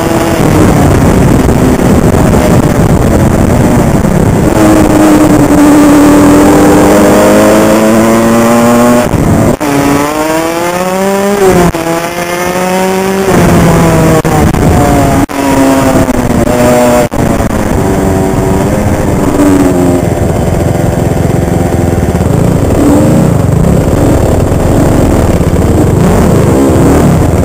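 Honda CR85's small two-stroke single-cylinder engine under riding load, revving up in several rising sweeps with brief throttle cuts between them, then running at a steadier, falling note, heard loud and close on board the bike.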